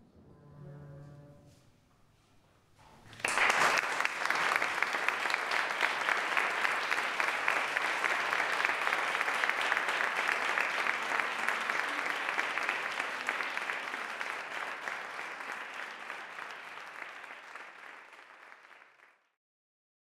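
Audience applauding: the clapping breaks out suddenly about three seconds in, after the last faint notes of the music, holds, then dies away and stops shortly before the end.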